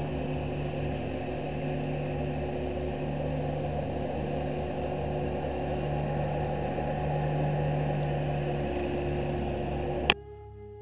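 A motor running steadily with an even hum that holds one pitch throughout. Near the end a sharp click cuts it off.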